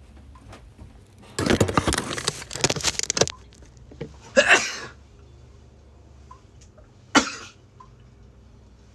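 Rustling and crackling handling noise close to the phone's microphone for about two seconds, then two short bursts a few seconds apart.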